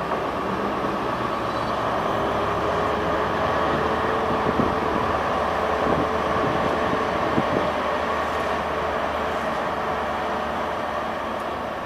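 Class 91 electric locomotive moving slowly out of the station under power, with a steady running hum and a faint tone that fades away. There are a few short knocks in the middle, as the wheels pass over rail joints.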